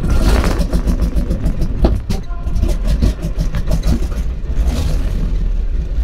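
Yak-12's radial engine running loudly just after catching on start-up, with a fast, even pulsing from the engine and propeller.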